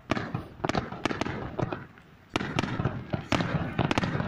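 Aerial fireworks shells bursting in a rapid starmine barrage: a quick string of sharp bangs, a short lull about two seconds in, then another fast volley.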